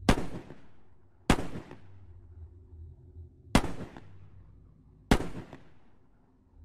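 Four handgun shots fired inside a car, unevenly spaced a second or two apart, each with a short ringing tail.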